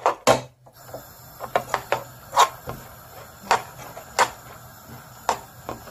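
A spoon knocking and scraping against a nonstick frying pan in irregular sharp strikes while riced cauliflower is stir-fried, over a faint steady hiss of frying.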